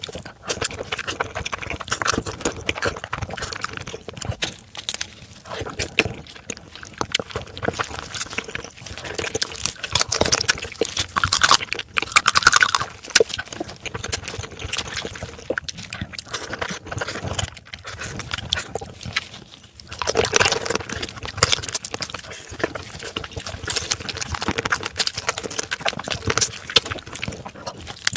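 Close-miked eating of marinated raw crab: wet chewing, sucking and slurping, with many sharp irregular clicks and smacks throughout.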